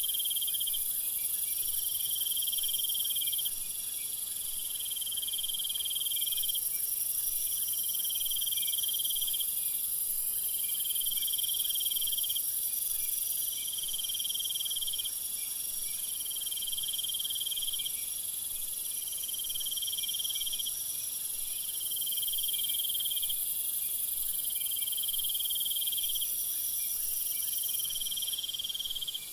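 Steady chorus of meadow insects such as crickets, high-pitched and continuous, with one trill that starts and stops every second or two.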